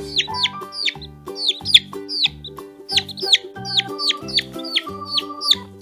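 Baby chicks peeping: a rapid string of high, shrill peeps, each sliding down in pitch, about two to three a second. A children's music track with a bass line plays under them.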